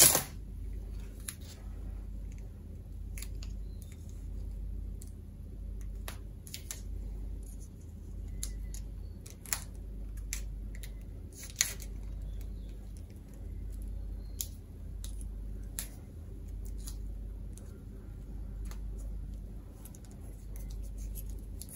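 Red electrical insulating tape being peeled off its roll and wrapped around a wire joint: scattered short crackles and clicks, a couple of them sharper, over a low steady hum.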